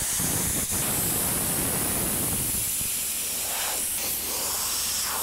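Compressed-air blow gun hissing steadily as it blows rinse water off a freshly washed car fender, with a brief break in the air under a second in.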